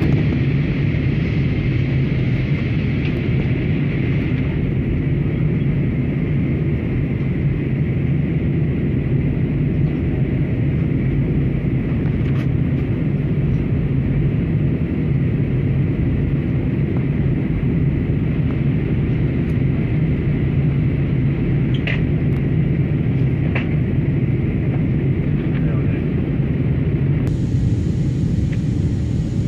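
Airliner cabin noise on the descent to landing: a steady low rumble of engines and airflow, with a few faint clicks.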